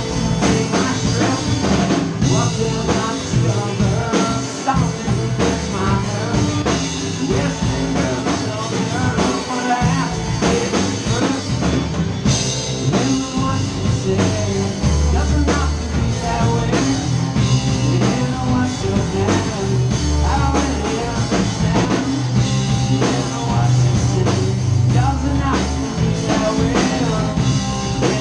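Rock band playing live together: drum kit, electric guitars and bass, with a singer's voice at the microphone. Heavy bass notes come in strongly about halfway through.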